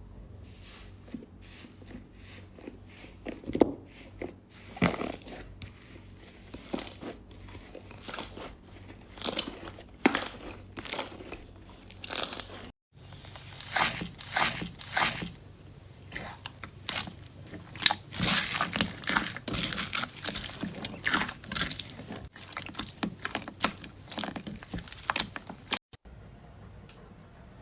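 Crunchy slime being pressed and squeezed by hand, giving quick irregular crackles and snaps. There are two brief silent breaks, about halfway through and near the end.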